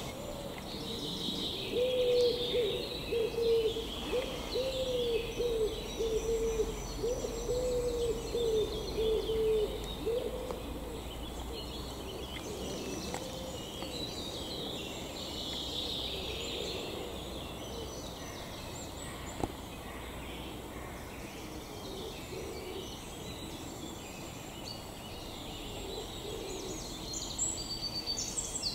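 Woodland birdsong, with a low bird call repeated many times over until about ten seconds in, then only the higher songbird chirping.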